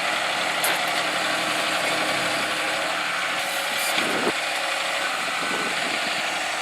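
A heavy vehicle's engine running steadily, with a mechanical rattle over it.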